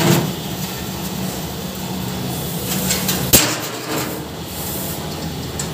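Barrel drum cutting machine running as a steel drum turns through its rotary cutting rollers, with a steady motor hum and metal rattling. A single sharp metal clank about three and a half seconds in.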